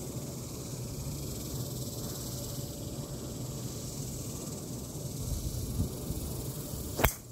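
A golf driver strikes a teed ball: one sharp, loud crack near the end, over a steady outdoor hiss.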